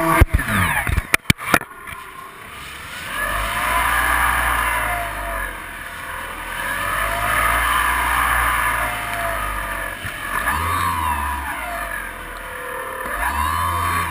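Electric motor and propeller of a Multiplex FunCub RC plane heard from a camera on board, a whine that swings up and down in pitch several times, over a low rumble of wind on the microphone. Several abrupt cuts break the sound in the first two seconds.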